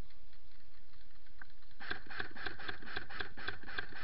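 Airsoft electric rifle (AEG) firing a sustained full-auto burst, starting about two seconds in: a rapid, even run of shots, roughly eight a second.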